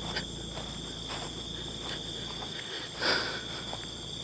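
Steady, high-pitched chirring of insects, with faint soft rustles and one louder rustling brush about three seconds in.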